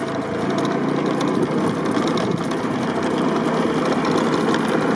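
Small motorcycle engine running steadily while riding along a dirt track, mixed with steady riding noise.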